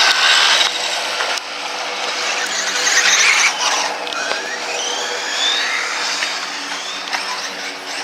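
Tamiya Bigwig 4WD radio-controlled buggy running, its electric motor and gearbox whining and rising and falling in pitch as it speeds up and slows, with one climbing whine around the middle.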